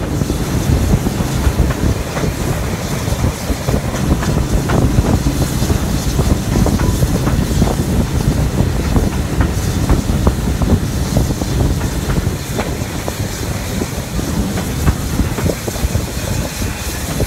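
Railway carriage running along the line, its wheels rumbling on the track and clicking irregularly over rail joints.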